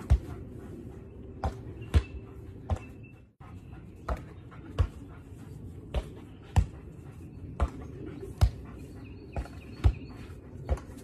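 A volleyball rally between a woman and a golden retriever: a run of sharp thuds about every three-quarters of a second, as the ball is bumped off her forearms and knocked back by the dog.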